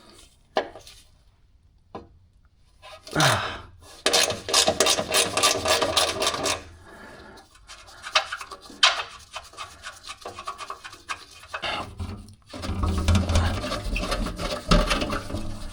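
Ratchet wrench with a 12 mm socket clicking rapidly in a run of a few seconds as it spins a bolt loose, followed by scattered clicks and rubbing.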